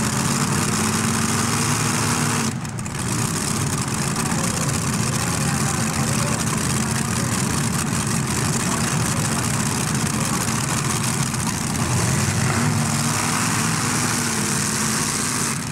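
Multi-engine modified pulling tractor's engines running steadily at idle, with a brief drop in level about two and a half seconds in.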